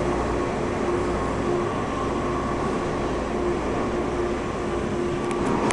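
TTC Hawker Siddeley H6 subway train running through the station at speed without stopping: a steady rumble of wheels on rails, with a low tone that keeps coming and going.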